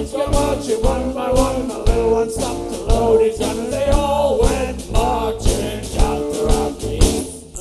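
A band playing live: a drum kit keeps a steady beat under guitars and a winding melody line. The music drops away near the end as the band breaks off.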